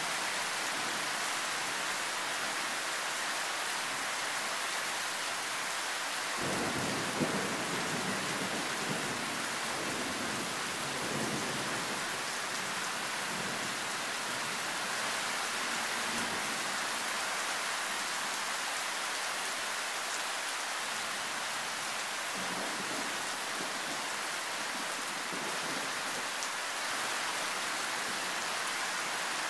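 Thunderstorm: loud, steady rain with a clap of thunder that breaks sharply about six seconds in and rumbles on for several seconds, then fainter rolls of thunder later on.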